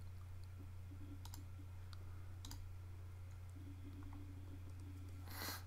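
Faint computer-mouse clicks over a steady low hum, with a brief louder burst of noise near the end.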